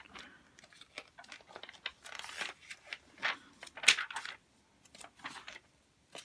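Glossy magazine pages being flipped quickly, a series of short paper swishes and rustles, the loudest about four seconds in.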